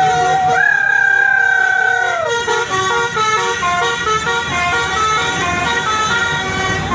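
Tour bus telolet multi-tone horn. One long held blast slides down in pitch about two seconds in. It is followed by a quick run of short notes hopping between pitches, like a tune.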